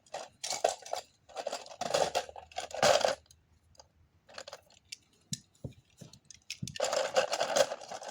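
Handling noise: small hard objects scraping and clattering in several short bursts, with a few sharp clicks between them.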